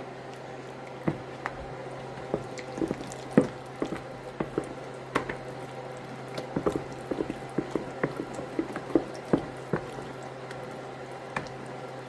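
Spoon stirring a thick ricotta, egg and garlic mixture in a container: irregular clicks and taps of the utensil against the container with wet handling sounds, over a steady low hum.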